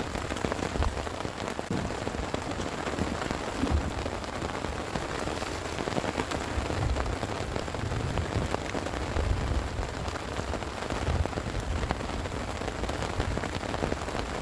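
Heavy rain falling steadily, with many close, sharp drop hits and irregular low thumps.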